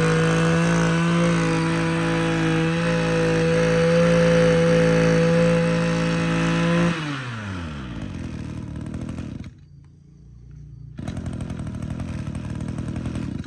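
Echo Kioritz 26cc two-stroke brush cutter engine held at high revs with a steady note. About seven seconds in the throttle is released and the revs fall away, settling to a quieter low-speed run.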